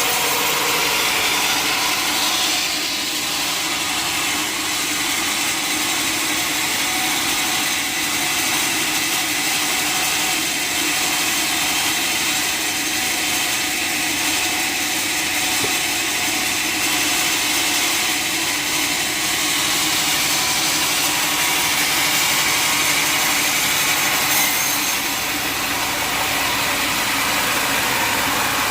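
Sawmill machinery running steadily, a constant mechanical hum and hiss without breaks.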